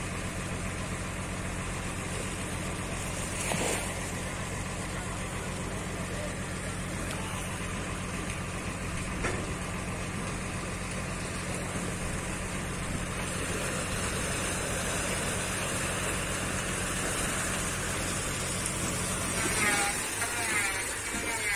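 A heavy engine running steadily at idle, with part of its low note dropping away near the end.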